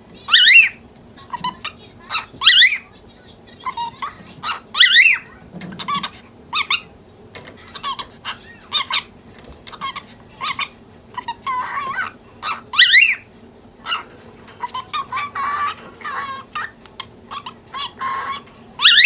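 Pet cockatiel calling loudly: a series of sharp chirps, roughly one a second, each a quick rising-and-falling whistle, with short stretches of scratchy chatter in between.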